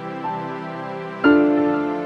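Slow, soft instrumental background music, with sustained chords struck about a quarter-second in and again just after a second, each fading slowly.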